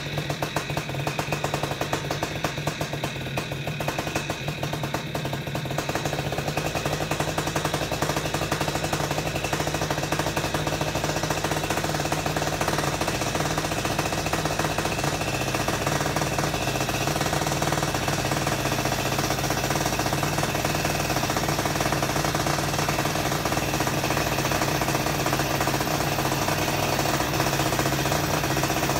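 Paramotor's two-stroke engine running steadily at low speed while it warms up, with a fast, even firing pulse; it fills out slightly about six seconds in.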